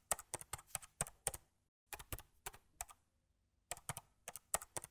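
Computer keyboard keys being tapped as text is deleted in a text editor, in three quick runs of clicks separated by short pauses.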